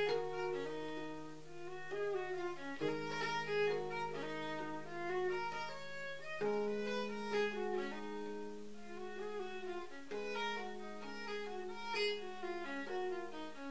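Baroque viola playing a folk-style melody over long held low notes that change every three to four seconds, with a plucked string accompaniment.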